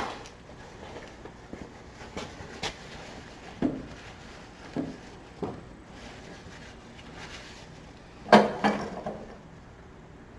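Hand tools and small engine parts being handled in a workshop: scattered light knocks and clicks, with the loudest pair of knocks about eight seconds in.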